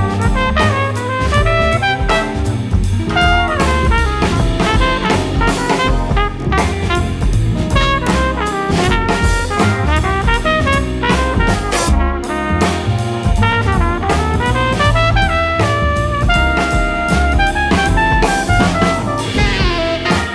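Jazz music with brass and a drum kit.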